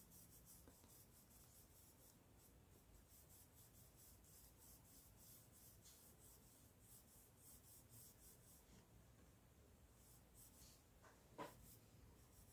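Near silence, with the faint scratching of a small paintbrush stroking back and forth over cotton fabric while blending paint. A brief, slightly louder sound comes near the end.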